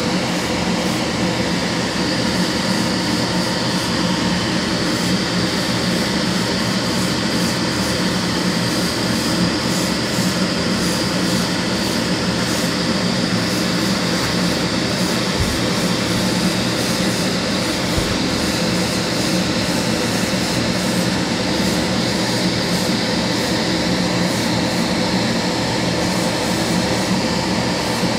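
Spray-booth extractor fan running with a steady whir and low hum, with the airbrush's air hissing on and off.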